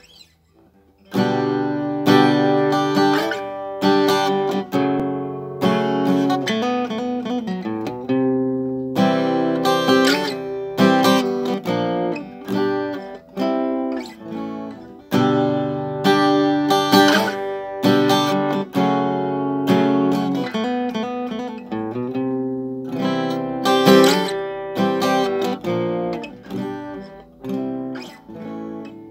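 Acoustic guitar being strummed, playing a run of chords that change every second or two, starting about a second in.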